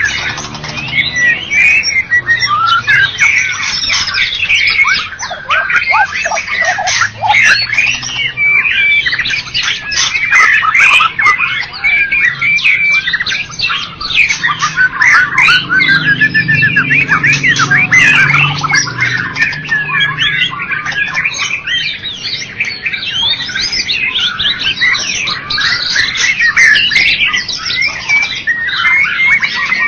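White-rumped shama (murai batu) singing non-stop: a fast, varied run of short whistled notes and trills.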